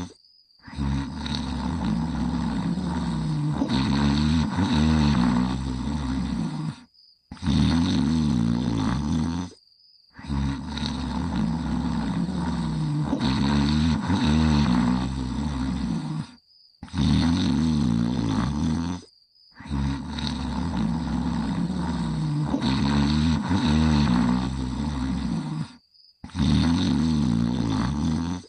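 Loud, rumbling snoring of a sleeping character. Long snores of about six seconds alternate with shorter ones of about two seconds, each cut off by a brief silence, and the same pattern repeats like a loop.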